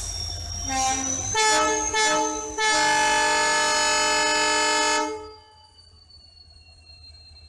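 WDP4D diesel locomotive's air horn sounding: a few short blasts, then one long blast of about two and a half seconds that dies away about five seconds in. Before the horn, the train's low rumble and a high-pitched wheel squeal; after it, only a faint squeal.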